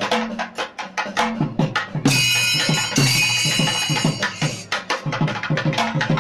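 Traditional temple percussion music: fast, even drum strokes, about six a second. About two seconds in, a loud metallic ringing joins for a couple of seconds.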